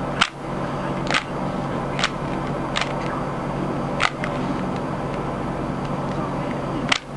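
Rubik's cube being turned by hand, its plastic layers clicking as each turn snaps into place: about six sharp clicks at uneven intervals, over a steady hum.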